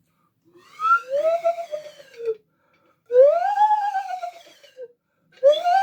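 Swanee (slide) whistle played in three slow swoops, each sliding up in pitch and back down; the third starts near the end.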